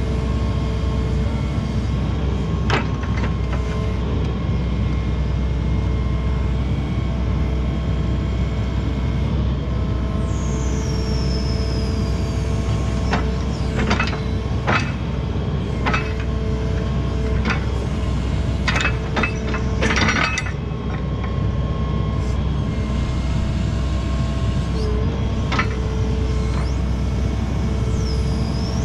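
Hitachi ZX140W-3 wheeled excavator's diesel engine running steadily with a hydraulic whine as the boom, stick and bucket are worked, and scattered sharp knocks from the arm and bucket. A high squeal falls in pitch about ten seconds in, and a short one comes near the end.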